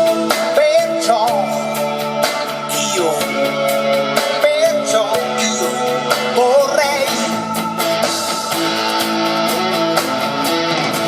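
An Italian pop song played back through MB Quart 1000 loudspeakers fitted with rebuilt crossovers: sustained chords with guitar and a melody line that bends up and down in pitch.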